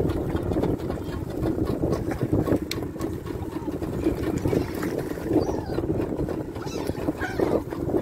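Motorboat engine running steadily under way, with wind and water rushing past the hull; a few gull calls come through faintly near the end.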